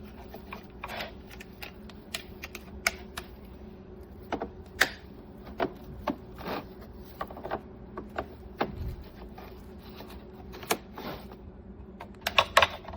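Hard plastic parts of a Hoover Smartwash carpet cleaner clicking and knocking as the brush rolls and their cover are fitted back into the machine by hand. The clicks are irregular, with a cluster of louder ones near the end, over a faint steady hum.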